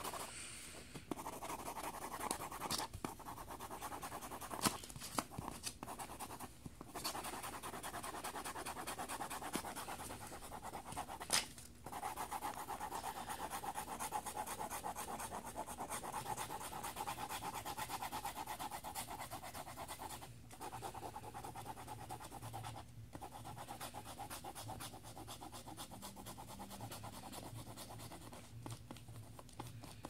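Mechanical pencil lead scratching across lined paper in fast back-and-forth shading strokes, pausing briefly a few times, with a couple of sharp clicks.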